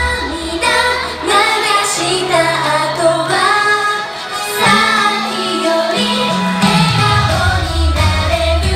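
Group of young female idol singers singing a J-pop song live in unison over a pop backing track. The deep bass drops out a little over a second in and comes back in about seven seconds in.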